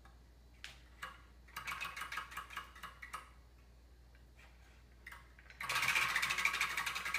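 Homemade prize wheel spinning, its plastic flapper cut from a soda bottle clicking against the pegs around the rim. A short run of quick clicks comes about a second and a half in. Near the end a much louder, fast run of clicks starts as the wheel is spun hard.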